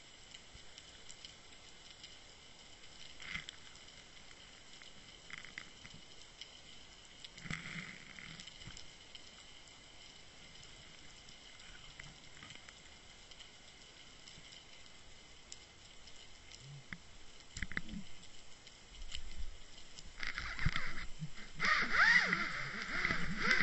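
Underwater sound picked up by a Water Wolf UW1.0 fishing-line camera on the seabed: a faint steady hiss with a few scattered clicks and knocks. About twenty seconds in it becomes a much louder rattling scrape as the camera is jostled.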